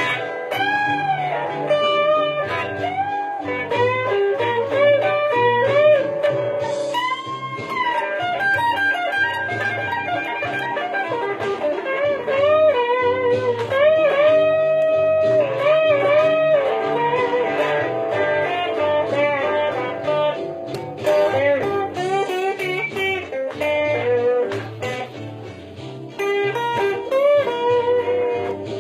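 Fender Telecaster electric guitar playing a blues lead line with string bends and held notes, over a steady repeating bass line.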